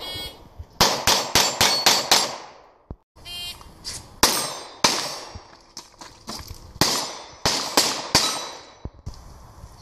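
Pistol shots at steel targets, each one ringing off the plates: a fast string of about seven shots. After a break comes a short electronic beep from a shot timer, then a second, slower string of shots with the steel clanging.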